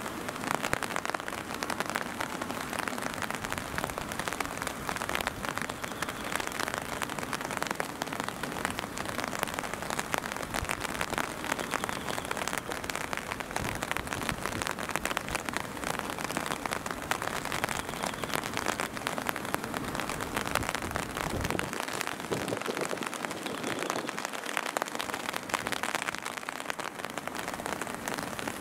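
Steady rain falling and pattering on surfaces, a dense, even spatter of drops.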